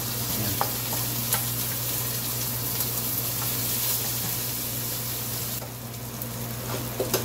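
Diced onions sizzling in hot rendered beef fat in a frying pan as they are sautéed, stirred with a wooden spoon that gives a few light knocks. The sizzle quietens near the end.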